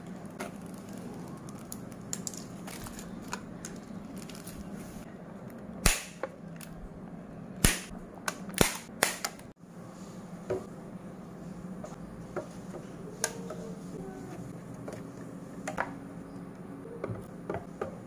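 Small plastic bottles and yogurt cups being handled: a few loud sharp plastic snaps and clicks in the middle, then lighter taps as they are set into a clear plastic fridge bin, over a steady low hum.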